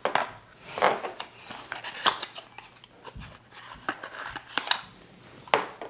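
Paperboard ink-bottle boxes being opened by hand: irregular crisp crackles and snaps as flaps are pulled and the packaging is worked loose. A short low thump about three seconds in fits a glass ink bottle being set on the desk.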